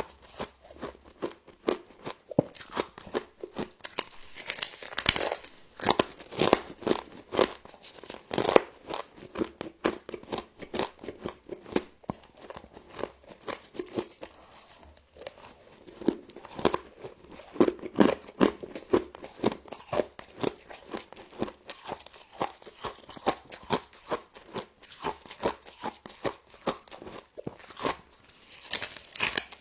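Frost being bitten and chewed close to the microphone: a long run of irregular crunching, crackling bites with short lulls between them.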